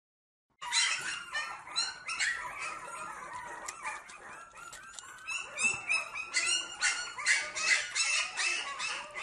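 Young puppy making rapid, high, squeaky whimpers while suckling from a milk bottle, starting about half a second in, mixed with small clicks.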